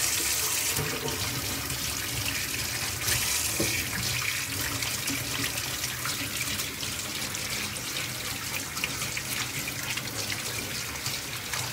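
Kitchen tap running steadily into a stainless steel sink, the stream splashing over hands as they are rubbed and rinsed under it.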